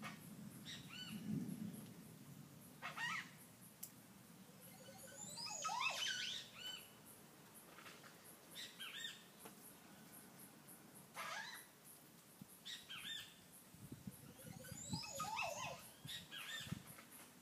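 Montezuma oropendola calling: short clusters of gliding notes repeated every two seconds or so, the longest and loudest about six seconds in.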